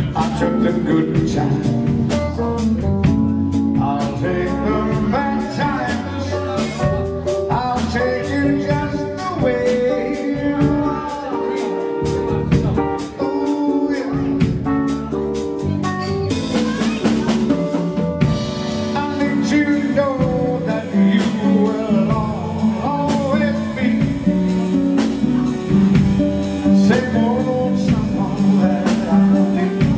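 A male singer singing live into a handheld microphone over a backing band, with a drum kit keeping time with frequent cymbal and snare hits.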